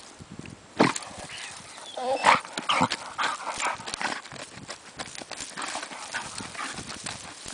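German Shorthaired Pointer digging and snuffling with its head down a hole in dry grass: irregular scrabbling, rustling and sharp knocks, the loudest about a second in, with a short pitched vocal sound from the dog a little after two seconds in.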